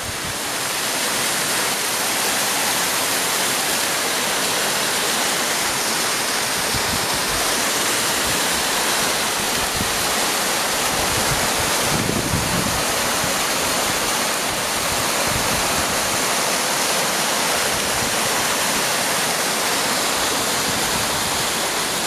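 Waterfall and rocky stream rushing, a steady hiss of falling and tumbling water.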